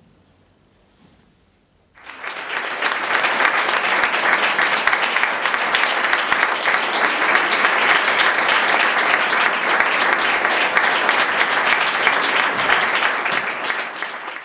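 Audience applauding. The clapping starts about two seconds in, swells quickly to a full, steady applause, and cuts off abruptly at the very end.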